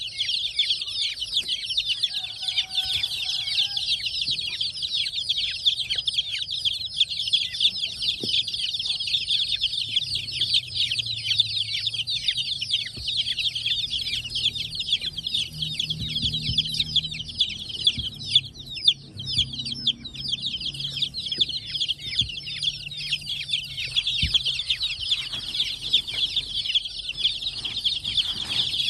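Dozens of baby chickens (chicks) peeping all at once: a dense, unbroken chorus of high-pitched cheeps.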